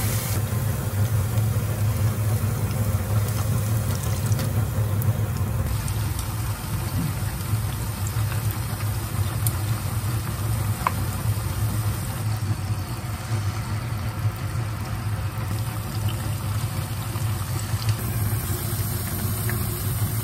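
Hot oil sizzling and bubbling as battered tempura and onion-and-carrot kakiage fritters deep-fry in a pan, over a steady low hum.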